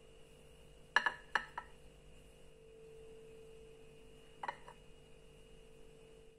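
Small glass gravy boat clinking against the plate and table as it is handled and set down: three sharp clicks about a second in and a double click about four and a half seconds in, over a faint steady hum.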